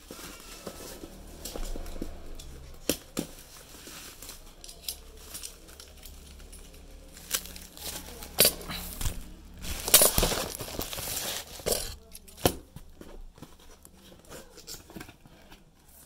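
Plastic bag and bubble wrap crinkling and rustling as packaging is pulled off a boxed set-top box and its cardboard box is handled and opened, with scattered sharp clicks and knocks. The loudest stretch of rustling comes about two-thirds of the way through.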